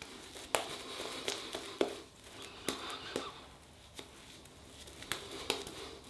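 Greg Wagner Gear Shift synthetic shaving brush working La Toja shaving soap lather on the neck and jaw: a wet, crackling lather sound with irregular sharp clicks and pops as the bristles move over the skin.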